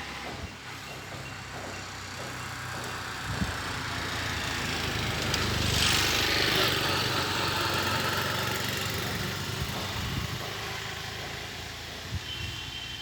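A motor vehicle passing by: its engine and road noise grow steadily louder to a peak about halfway through, then fade away.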